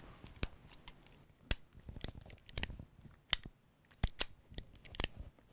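About ten sharp metallic clicks at irregular intervals as a Remington 1875 replica pellet revolver is handled, its single-action hammer and cylinder mechanism clicking.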